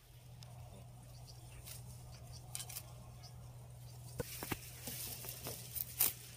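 Hand sickle cutting through bunches of Chinese chive stalks at the base, with rustling of the leaves and a few sharp, crisp snips in the last two seconds, over a low steady hum.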